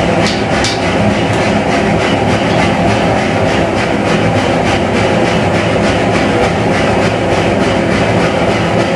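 Gas forge burners running with a steady loud roar, with a few hammer blows on hot steel on the anvil in the first second.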